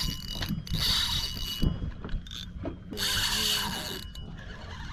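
Spinning reel buzzing under load from a big hooked bluefish pulling hard on the line, in two bursts of about a second each, one near the start and one about three seconds in.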